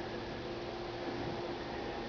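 Steady low hiss of room tone with a faint, even hum; no distinct event.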